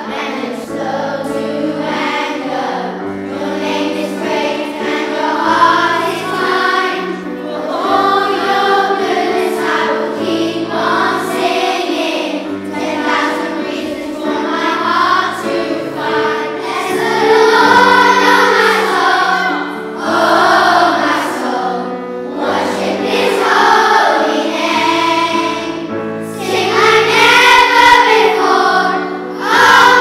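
A children's choir singing a song in unison over an instrumental accompaniment of steady held low notes.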